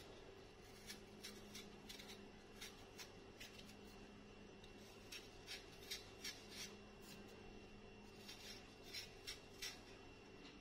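Small kitchen knife cutting a hand-held apple, slicing pieces off: a run of faint, short, crisp cuts at irregular intervals, a few louder than the rest.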